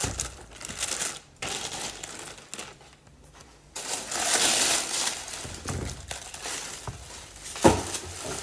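Clear plastic bags and tissue paper crinkling in irregular bursts as they are handled, loudest about halfway through. A single sharp knock near the end.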